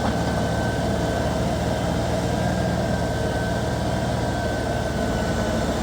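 Farm tractor engine running steadily, with a thin high whine held throughout.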